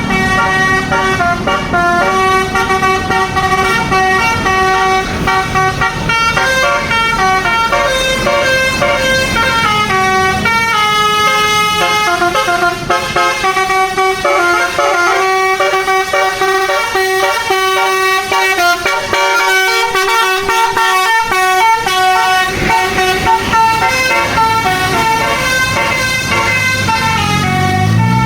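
Bus basuri telolet horn, a multi-trumpet musical air horn, playing a tune: several horn tones sound together and step from note to note without a break, with a stretch of quicker note changes around the middle.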